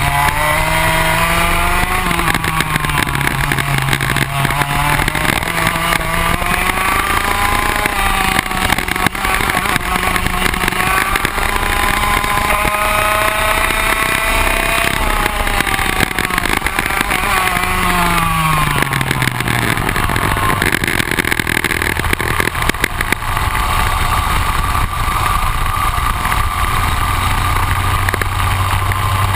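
Rotax Max 125 two-stroke kart engine heard close up from onboard the kart at speed, its pitch climbing on the straights and falling off as it slows for corners. A long drop in pitch comes about two-thirds of the way through, then the engine pulls up slowly again from low revs.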